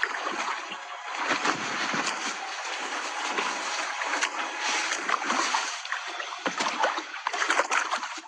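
Birds splashing and sloshing in a shallow waterhole, with a continuous run of small splashes.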